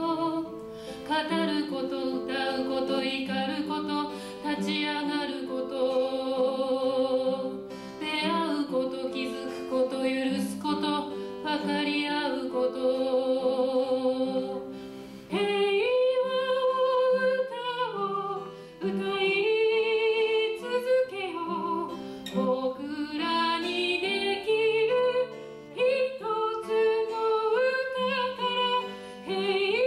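A woman singing a slow song while accompanying herself on an acoustic guitar, holding long notes with vibrato.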